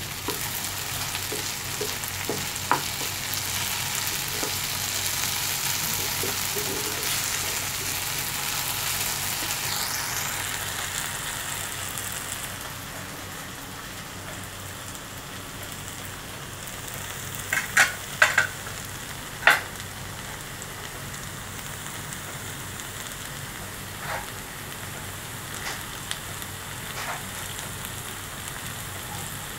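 Diced potatoes and onions sizzling in hot oil in a non-stick frying pan, turned with a wooden spatula. The sizzle is strongest at first and settles lower about halfway through, and a few sharp knocks come about two-thirds of the way in.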